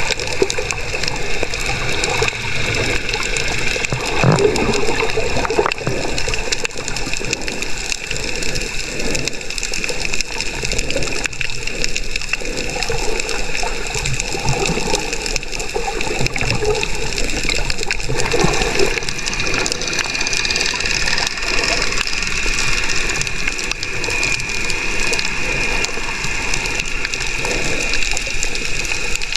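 Sea water sloshing and gushing close around the camera of a swimming snorkeler, a dense steady wash with scattered small knocks.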